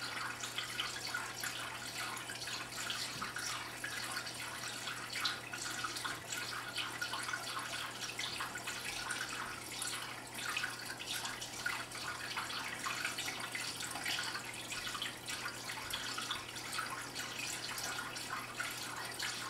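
Water trickling and splashing steadily into an aquarium, a continuous patter of small drips and splashes, with a steady low hum underneath.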